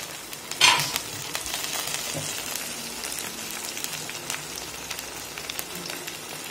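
Chopped onion, ginger, garlic and green chilli frying in hot oil in a kadai: a steady sizzle with fine crackling, and one short, louder hiss about half a second in.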